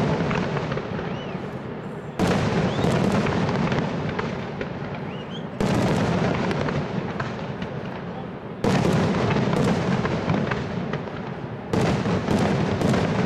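Aerial firework shells bursting one after another, about three seconds apart: four loud booms, each trailing off in a long rumbling echo with scattered crackles.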